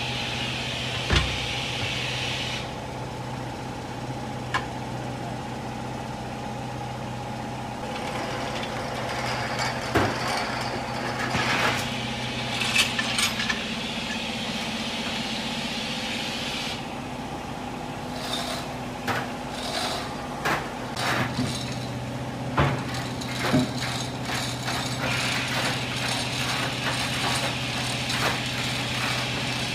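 Workshop machinery running with a steady hum, with scattered knocks, clinks and rattles of metal tools and parts being handled.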